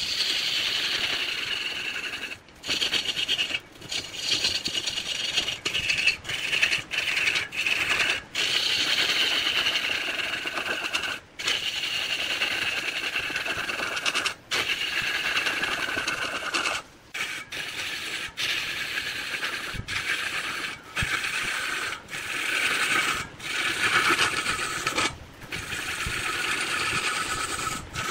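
Turning tool cutting into spinning wood on a lathe: a continuous scraping hiss that stops and starts in many short breaks.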